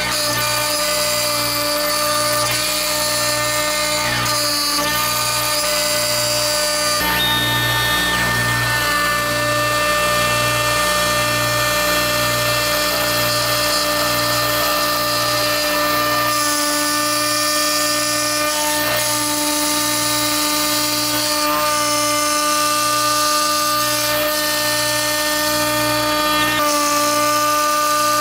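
STEPCRAFT HF500 spindle running at 18,000 RPM, its 1/8-inch spiral O-flute end mill cutting a pocket in half-inch cast acrylic: a steady whine of several tones, changing in character about 7 seconds in, with a low regular pulsing underneath.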